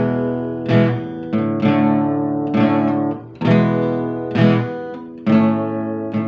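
Acoustic guitar strumming slow chords, about one a second, each chord left to ring out and fade.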